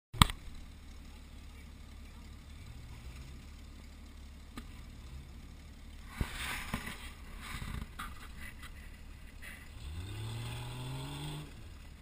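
Off-road SUV engine running at low revs while crawling over a rocky trail, with a sharp click right at the start. Knocks and rattles come from the vehicle around six to eight seconds in. Near the end the engine revs up, rising in pitch for about a second and a half, then drops back.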